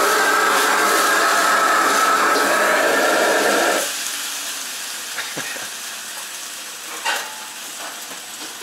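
Loud, steady sizzling of food frying in a wok, which cuts off abruptly about four seconds in. Quieter kitchen background follows, with a few light metal clinks.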